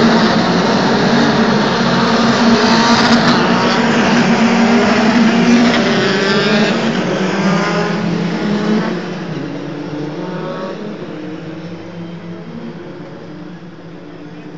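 Several single-seater racing cars' engines revving hard as they accelerate away at a race start, with repeated climbs in pitch as they go up through the gears. The sound fades into the distance over the last several seconds.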